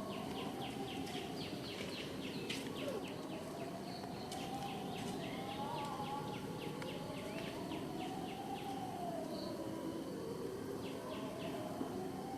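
Rapid high chirping, several chirps a second, that comes and goes, over a fainter tone that slowly rises and falls every three seconds or so.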